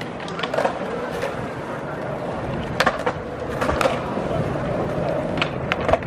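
Steady outdoor urban background noise, broken by several sharp clacks or knocks scattered through it.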